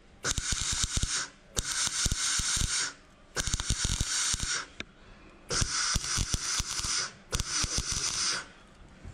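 MIG welder crackling and spitting in five short runs with brief pauses between, stitch-welding a new steel inner rocker-panel reinforcement section into place.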